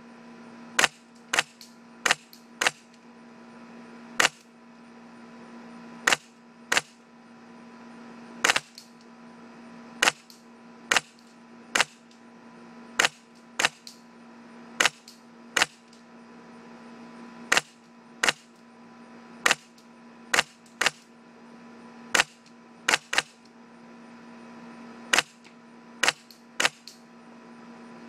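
Polarstar HPA-powered airsoft gun firing semi-auto, about thirty sharp shots at irregular intervals, singly and in quick pairs. A steady low hum runs underneath.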